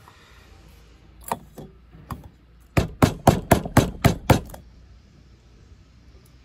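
An opened tin can of baked beans knocked against a stainless steel bowl to shake the beans out: a few scattered knocks, then a quick run of about seven knocks, around four a second.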